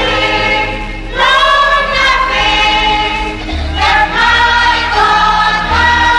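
Gospel choir singing a song with low accompanying notes underneath, played from a live recording transferred off an old vinyl LP.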